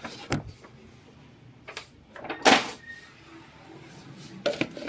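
Handling noises from shopping bags and boxes being moved: a few short rustles and knocks, the loudest about two and a half seconds in.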